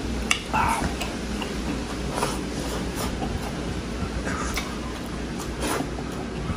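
Close-up eating sounds: chewing with wet mouth clicks and lip smacks a few times a second while eating rice and beef by hand, over a steady low hum.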